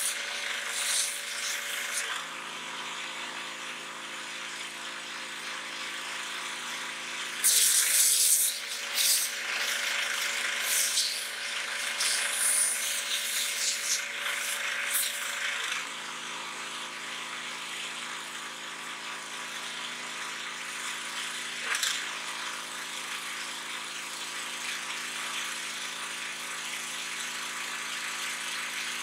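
Pressure washer running steadily, its jet hissing and spattering against a pumpkin in two spells: briefly at the start, then from about seven to sixteen seconds in. The machine's hum shifts in pitch each time the spray starts or stops, and there is a single knock a little past twenty seconds.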